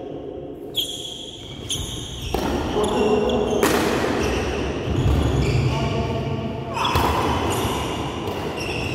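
Badminton rackets striking a shuttlecock during a rally: sharp hits at irregular intervals, each echoing in the large hall.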